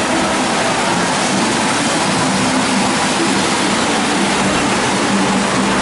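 Steady loud rushing din of a model railroad exhibit hall, with a low wavering hum that grows stronger near the end.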